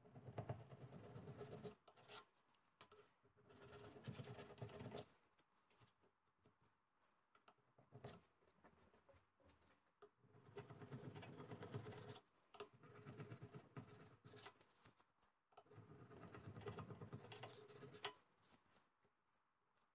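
A sharp chisel scraping excess cured glue off the steel top slide of a lathe. It comes as faint bouts of short scraping strokes, with pauses between.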